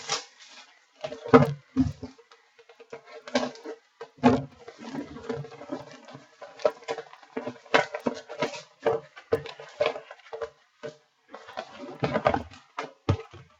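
Irregular handling noises: short clicks, taps and rustles at uneven intervals, over a faint steady hum.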